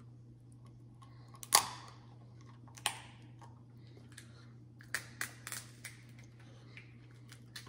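Close-miked eating of seafood boil: scattered sharp wet smacks and clicks of biting and chewing, the loudest about one and a half seconds in and a small cluster around five seconds in. A steady low hum runs underneath.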